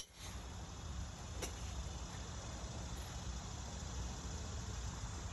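Steady outdoor background noise, opening on the dying crack of a driver striking a golf ball, with one sharp distant click about a second and a half in.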